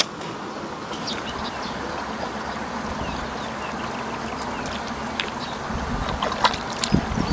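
Rice seedlings being pushed by hand into waterlogged paddy mud: wet squelching and sloshing of mud and water, growing louder and more frequent near the end.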